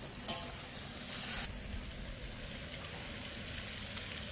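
Marinated chicken pieces sizzling as they fry in hot oil in a pot, with a louder burst of sizzling for about a second near the start.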